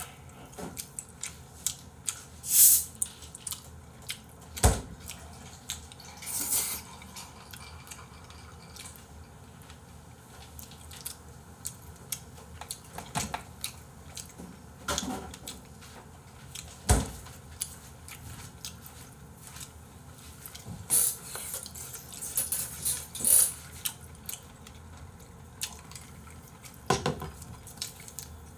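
Eating noises: wooden chopsticks tapping and scraping against plastic takeout containers of jjajangmyeon and fried rice, with scattered clicks and short rustling bursts and two sharper knocks, about five and seventeen seconds in.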